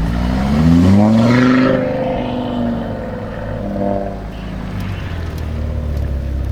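Tuned Audi RS3 Sportback 8V's turbocharged five-cylinder engine with a full Milltek sport exhaust, accelerating hard: the revs climb steeply over about a second and a half and then level off, with a second, shorter rise in revs about four seconds in.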